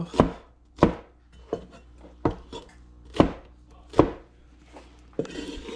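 A wide cleaver-style knife chopping peeled pineapple into chunks on a plastic cutting board: about six sharp knocks of the blade hitting the board, roughly one a second, then a short noise near the end.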